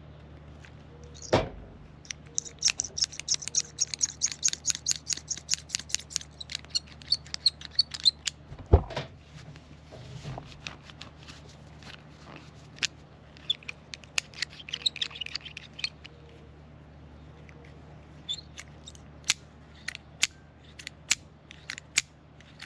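An old toothbrush scrubs a metal carabiner in rapid, hissy strokes, in two spells, to loosen gunk from the gate mechanism. A couple of thumps come early on, and sharp metallic clicks of the gate being worked follow, growing more frequent near the end.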